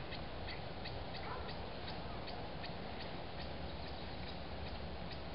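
Fishing reel ticking lightly and evenly, about four clicks a second, as its handle is cranked to wind the line back in.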